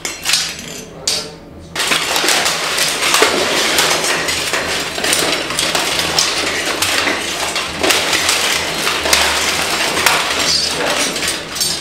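Steel plate armour clanking and clinking as armoured knights move, a dense run of metallic clinks and knocks that sets in about two seconds in.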